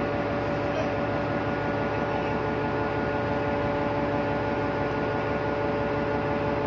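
Steady machinery drone on a ship's deck, a constant hum of several steady tones over an even noise, from the ship's generators and ventilation fans.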